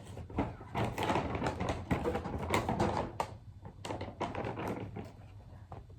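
Rustling and crinkling of packaging being handled, in quick clicky spells with a short pause about three seconds in.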